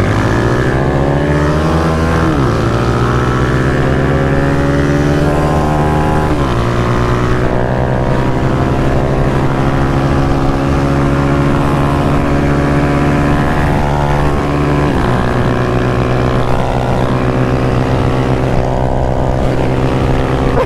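Motorcycle engine accelerating hard through the gears: its pitch climbs, drops back at a gear change about two and a half seconds in, climbs again and drops at another shift about six seconds in, then holds a steady high pitch at speed, dipping briefly about three quarters of the way through.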